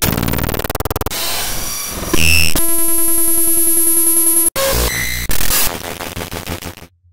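Synthesized sci-fi noise effects in quick succession: harsh electronic buzzing and pulsing, then a loud, rapidly pulsing electronic drone from about two and a half seconds in that cuts off suddenly, followed by more buzzy bursts that stop shortly before the end.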